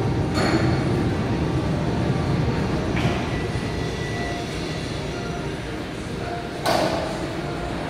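Overhead crane running: a steady rumble like a rail vehicle, with a few clanks, the loudest near the end.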